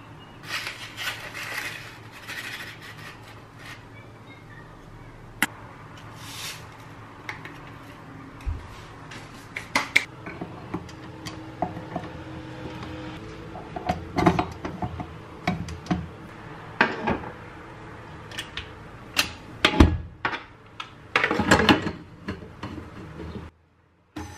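Irregular clinks, taps and knocks of metal and plastic kitchenware: a measuring spoon against a bowl, then a stand mixer's flat beater and clear pouring shield being fitted onto its stainless steel bowl. The knocks come thicker in the second half, the loudest about twenty seconds in.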